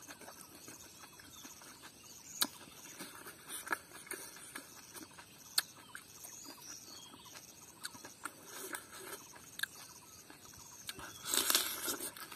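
Chewing and crunching of curried crab and rice eaten by hand, with scattered sharp clicks; a louder stretch of crunching near the end.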